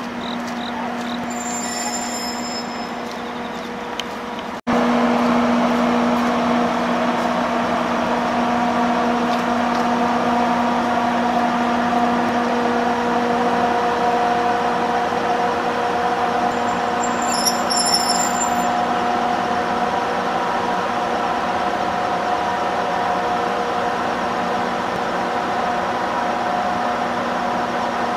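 Electric freight locomotive humming steadily with several pitched tones over a noisy rush, louder after a sudden cut a little under five seconds in. Two brief high-pitched squeals, one about two seconds in and one around eighteen seconds.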